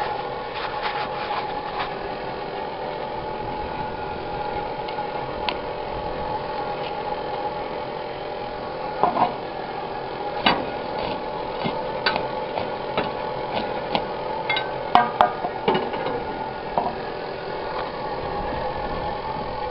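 A motor on a homemade downdraught wood gasifier running with a steady, even hum. Scattered sharp clicks and knocks sound over it, a few near the middle and a cluster about three-quarters through.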